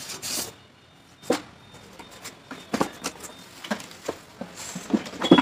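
Cardboard box and packaging being handled as items are taken out: a brief rustle, then scattered knocks, clicks and scrapes, the loudest near the end.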